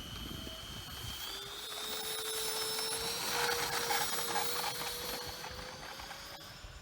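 Electric ducted-fan jet units of a radio-controlled Boeing 737 MAX 8 scale model in flight, a high whine climbing slowly in pitch. It grows louder toward the middle and fades near the end as the plane passes.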